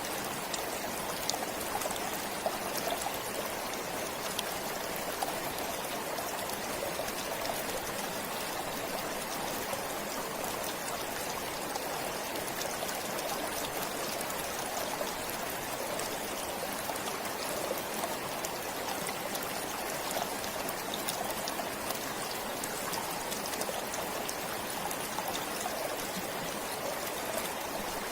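A forest stream flowing steadily, a continuous rush of water with fine splashes and trickles in it.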